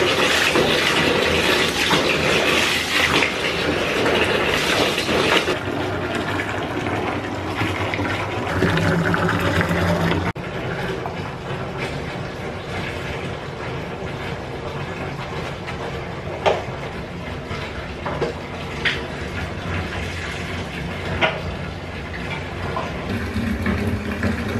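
Water running from a bath mixer tap into a filling bathtub, a steady rush that drops in level abruptly about ten seconds in. A few light knocks come in the second half.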